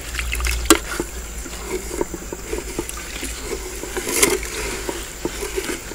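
Wooden ladle stirring rice in coconut milk and water in a metal pot: irregular sloshing and swishing of liquid, with a few sharp clicks, the strongest within the first second and at about four seconds.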